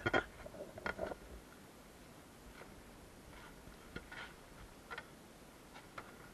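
Handling noise: scattered clicks and knocks from the camera and gear being moved about, a louder cluster at the start and about a second in, then a few light ticks.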